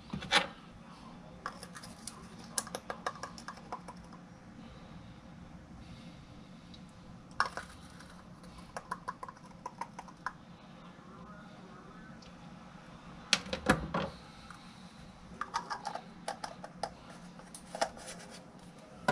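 Light clicking, tapping and crinkling of hands working a small spice container open between measurements, in irregular clusters with a few sharper knocks, the loudest about two-thirds of the way through. A faint steady low hum lies underneath.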